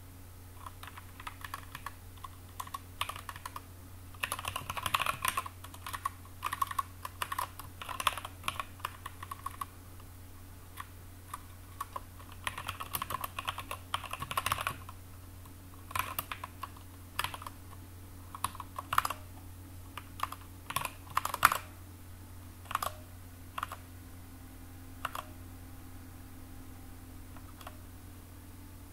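Typing on a computer keyboard: quick runs of keystrokes in the first half, then slower, scattered single key clicks.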